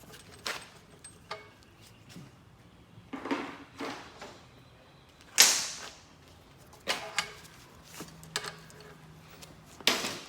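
Scattered sharp metallic clicks and knocks from working a brake line flaring tool, a handful of separate strikes with the loudest about halfway.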